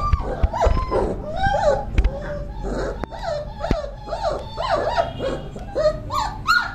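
Several 30-day-old Doberman puppies yelping and whining together, short rising-and-falling cries several times a second that overlap one another: the puppies are crying to be let out of their room.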